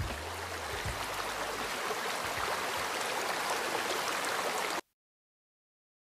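Steady rushing sound of running water, cutting off abruptly near the end into dead silence.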